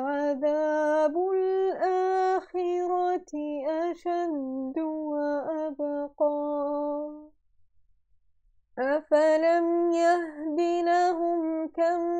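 A woman chanting the Quran in a slow, melodic tajweed recitation, with long held and gliding notes. She breaks off for about a second and a half in the middle, then resumes.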